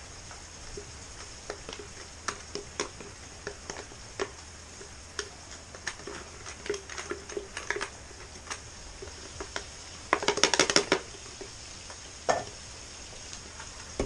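Light, irregular taps and knocks of a plastic blender jar as ground colorau (annatto seed and cornmeal powder) is shaken and tapped out into a bowl, with a quick run of louder rattling knocks about ten seconds in.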